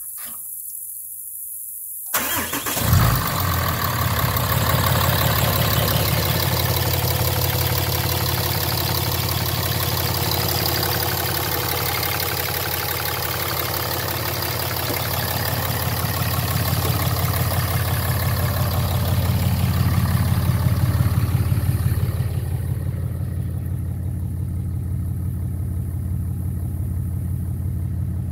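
2008 Dodge Ram 3500's 6.7-litre Cummins turbo-diesel straight-six starting about two seconds in, with a brief loud burst as it catches, then idling steadily. From about 22 seconds it sounds quieter and duller, heard from inside the cab.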